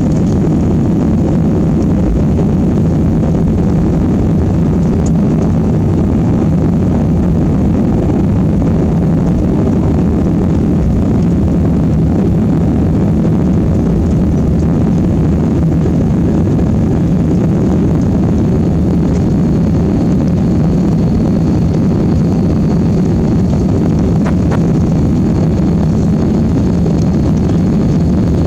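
Jet airliner engines running with a steady, low rumble; a faint high whine comes in about two-thirds of the way through.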